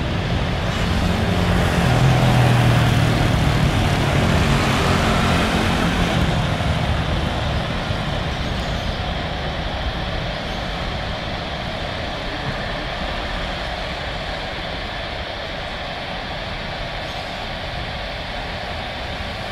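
Jet engines of a twin-engine widebody airliner at takeoff thrust on the takeoff roll. They grow loudest as it passes a couple of seconds in, with a low hum under the jet noise. The sound then fades steadily as the aircraft speeds away down the runway toward rotation.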